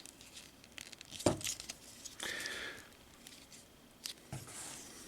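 Hard plastic toy parts being handled and fitted together: a few small clicks and a short scraping rub about two seconds in, as Transformers arm pieces are attached.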